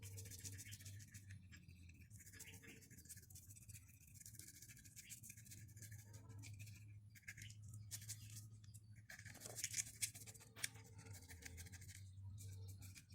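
Faint, irregular scraping and scratching with a few sharp ticks about ten seconds in, over a low steady hum.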